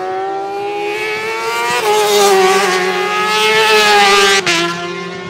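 Racing motorcycle engine at high revs passing by flat out, its note climbing and getting louder, loudest between about two and four seconds in. About four and a half seconds in there is a single sharp crack with a momentary drop, after which the note is lower and fades away.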